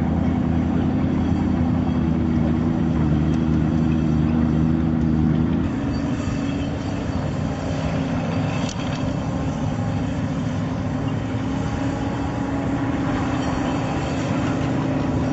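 M29 Weasel tracked carrier's Studebaker six-cylinder flathead engine running steadily as the vehicle drives over rough ground. About six seconds in, the note changes and turns rougher. A single sharp knock comes a little before the middle.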